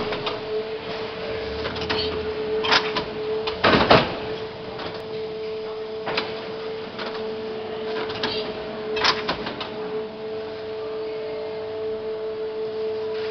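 fisher+rückle Cross Master veneer splicing machine running with a steady hum, broken by sharp mechanical clacks every few seconds; the loudest clack comes about four seconds in.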